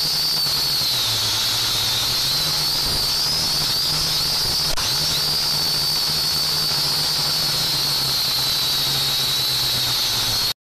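Small quadcopter drone's motors and propellers heard through its onboard camera: a steady high whine over hiss, the pitch dipping briefly a couple of times, with a single click about five seconds in. The sound cuts off abruptly near the end.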